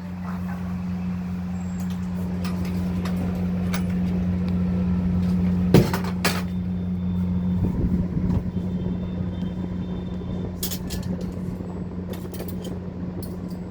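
Samsung AS243TTB split air conditioner running with a steady low hum that swells over the first six seconds. Two sharp clicks come about six seconds in, and smaller clicks follow later.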